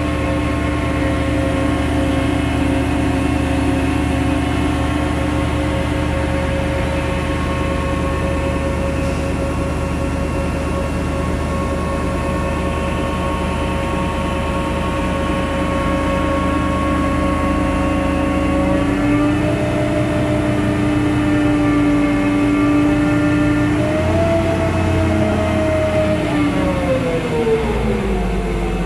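KATO NK-3600 truck crane's diesel engine running steadily under the load of a heavy lift. About two-thirds of the way through its pitch steps up, climbs again a few seconds later, then falls away near the end as the engine revs up and back down.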